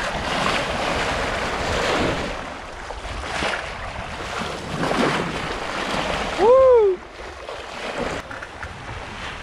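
Sea water rushing and splashing along the bow of a sailboat under way, with wind buffeting the microphone and a few brief louder surges of spray. A person whoops once about two-thirds of the way through.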